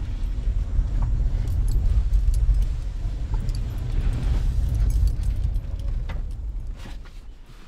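Car driving slowly, heard from inside the cabin: a steady low engine and road rumble with light clicks and rattles, dying down near the end as the car slows.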